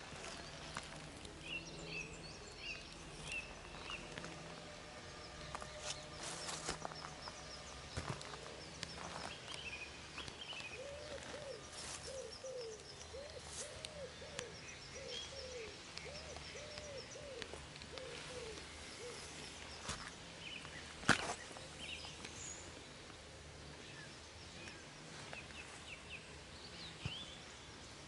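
Outdoor ambience with birds chirping, and in the middle a string of about a dozen low, rising-and-falling hoots from a bird. Scattered light knocks and clicks, the sharpest a little after twenty seconds in.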